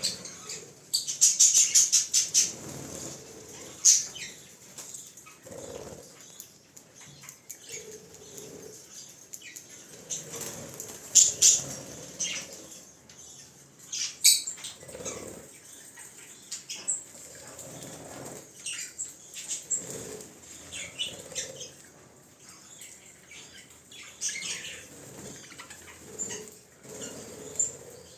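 African lovebirds fluttering their wings, with a loud burst of rapid wing beats about a second in and shorter flurries later, among short high chirps.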